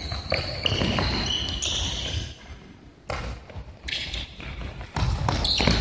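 Futsal ball bouncing and being kicked on a hardwood gym floor during play: several separate thuds.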